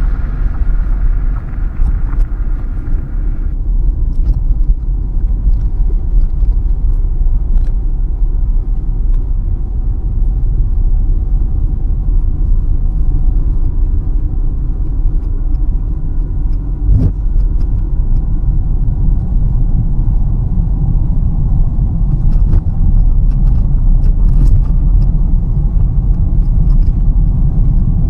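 Steady low road and engine rumble heard inside the cabin of a car driving along a country road, with a few faint short ticks.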